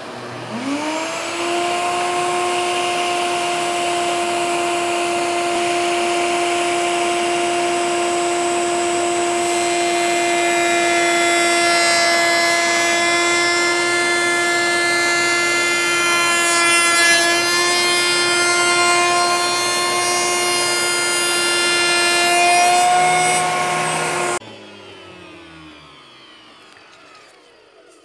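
Table-mounted router spinning up to a steady high-speed whine, with a Whiteside rail-and-stile bit cutting the profile along the edge of a pine board fed against the fence through the middle. Switched off about 24 seconds in, it winds down with a falling whine.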